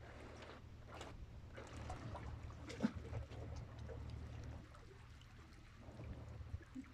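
Faint sea water lapping and trickling against the rocks under a steady low rumble, with scattered small clicks and one sharp click about three seconds in.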